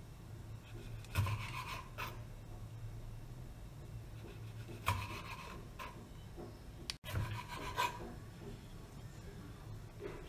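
Kitchen knife slicing a red pepper into rings on a wooden cutting board: about six separate cuts, each a short crunch as the blade goes through the flesh and meets the board, a second to a few seconds apart.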